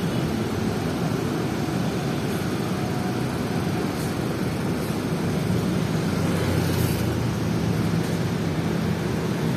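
Traffic noise from a jammed queue of tour buses, their diesel engines running steadily as they creep forward, with a steady engine hum growing stronger about halfway through.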